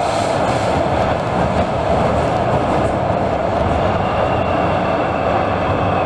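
Inside the passenger car of an MTR South Island Line S-Train (China-built), running at steady speed: a constant rumble and rush of wheels and air. A faint high steady tone joins about four seconds in.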